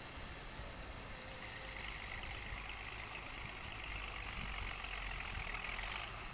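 Fiatagri 100/90 DT tractor's six-cylinder diesel engine running steadily as it pulls a disc harrow through the soil, with a hiss over the low rumble that drops away near the end.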